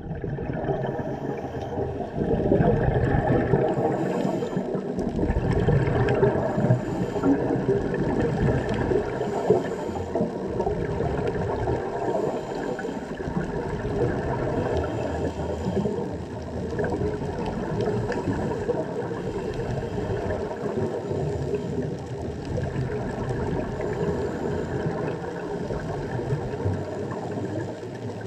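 Underwater ambience picked up by a submerged camera: a steady, muffled rush of moving water that swells and eases, a little louder from about two seconds in.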